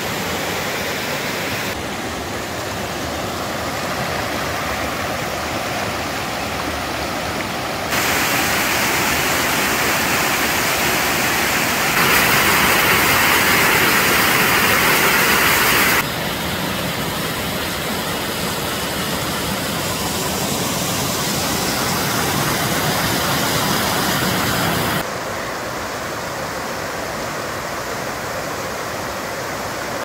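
Rushing water of a rocky mountain stream pouring down cascades and small waterfalls, a steady hiss with no other sounds. It jumps abruptly in level several times and is loudest from about twelve to sixteen seconds in.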